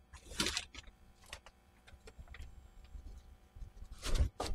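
Ring spanners on a rusted, seized nut and bolt, with faint metal clicks as they are fitted and worked. Two short noisy bursts come through, one just after the start and one near the end.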